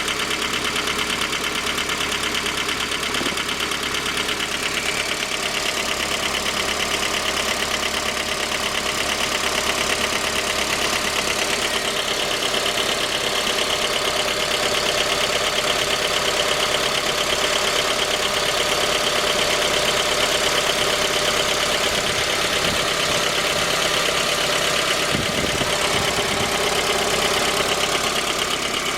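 Suzuki J20A 2.0-litre four-cylinder engine idling cold, with a light knock running steadily through its idle. The knock is the sign of a scored crankshaft journal at cylinder 3.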